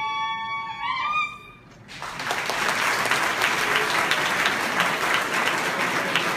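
A held, high sung note from women's voices ends about a second in. After a short pause, audience applause and cheering start at about two seconds and continue.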